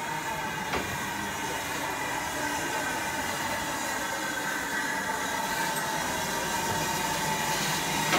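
LMS Ivatt Class 2MT steam tank locomotive No. 41312 moving slowly past, with a steady hiss and a few held tones. There is a single sharp click about a second in.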